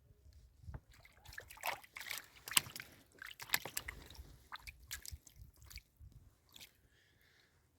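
Water splashing and sloshing in quick irregular strokes as a freshly hooked fish is brought in at the boat, dying down after about six seconds.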